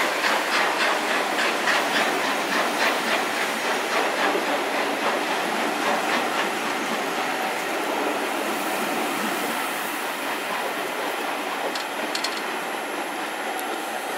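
A steam-hauled train departing: the GWR Castle class locomotive's exhaust beats, even and quick, fade over the first several seconds as it pulls away, while its carriages roll past with a steady rumble and clatter of wheels on the rails, a few sharp clicks near the end.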